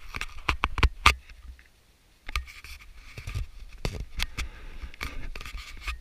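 Handling noise on a GoPro camera: sharp clicks, taps and scraping as a hand grips and re-aims the camera. A low rumble runs underneath, with a brief lull about two seconds in.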